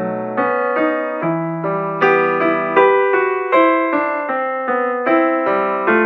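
Background piano music: a steady, unhurried melody of struck notes, each ringing and fading before the next.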